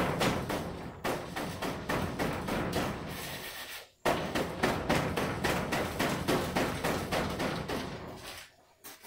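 Sand being sifted through a rope-hung round sieve, the frame shaken rapidly back and forth so the sand rattles and scrapes across the mesh in quick, even strokes. It stops briefly about four seconds in, starts again, and dies away near the end.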